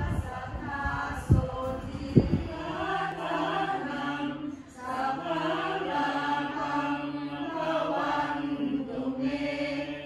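A group of voices chanting together in Buddhist style, holding a near-monotone with brief pauses for breath. Two short knocks cut in near the start, about a second apart.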